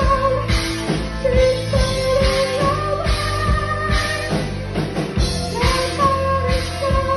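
Rock band playing live: a steady drum beat under long, wavering melody notes.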